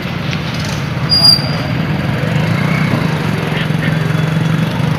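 A motor vehicle's engine running steadily, with a brief high-pitched tone about a second in.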